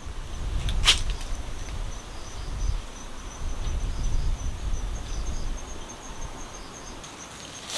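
Insects, crickets by the tags, trilling steadily at a high pitch, over a low rumble, with one sharp click about a second in.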